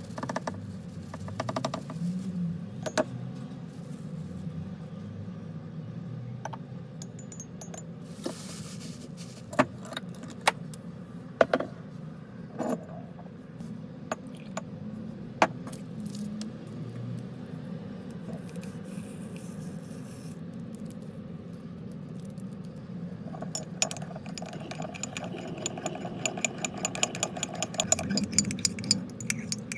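Scattered taps and knocks of a metal measuring spoon against an enamel mug, with plastic-bag rustling as cocoa powder is scooped. Near the end comes rapid, even clinking as the spoon stirs cocoa inside the enamel mug.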